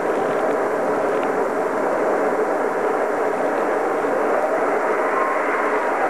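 Strong wind blowing steadily over open snow, a dense, even rush with no breaks.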